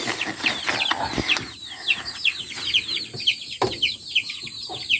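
Chicks peeping steadily: a quick run of short, high, downward-sliding peeps, several a second. Rustling and a few knocks of handling are mixed in.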